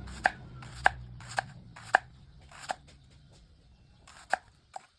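A series of sharp, short knocks or chops: five at roughly half-second intervals, a brief lull, then two more near the end.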